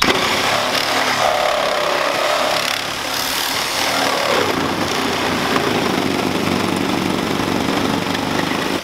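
Reciprocating saw running continuously as it cuts through a car's steel roof pillar.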